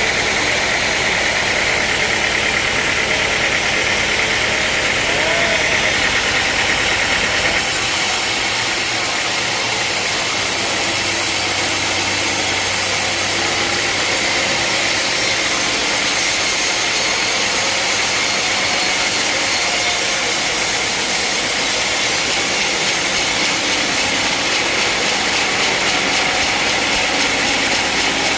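Sawmill machinery running steadily with a loud, even mechanical noise. About a third of the way in the sound shifts, turning more hissing and less rumbling.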